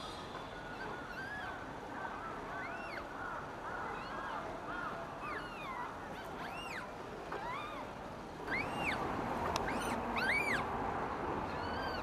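Short, high chirping calls, each rising and falling, repeated every half second to a second over a steady background hiss; about eight seconds in the background noise grows louder.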